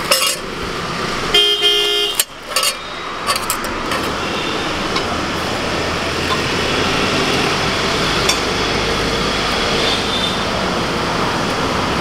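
Oil sizzling steadily on a large iron tawa as a potato tikki fries in it. A vehicle horn honks briefly about a second and a half in, among a few sharp clicks in the first few seconds.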